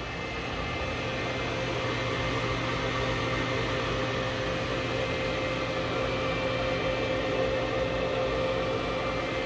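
Steady electrical and mechanical hum of a powered-up Star SB-16 CNC Swiss-type lathe standing at idle, with a few held tones over an even whirring hiss. It grows slightly louder over the first couple of seconds, then holds.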